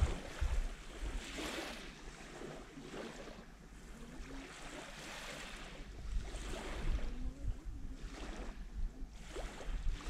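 Small sea waves lapping and washing up on a sandy shore, each soft wash swelling and fading every two or three seconds, with low wind rumble on the microphone now and then.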